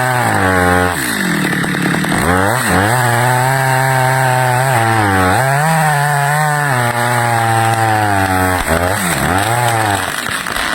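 Stihl chainsaw running hard while cutting wood. Its engine pitch sags sharply under load about a second in, again a few times through the middle, and twice more near the end, recovering to full revs after each dip.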